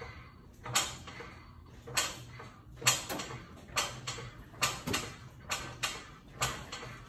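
3.5-ton hydraulic floor jack being pumped, a creaking stroke about once a second, as it lifts the lower control arm and compresses the front coil spring.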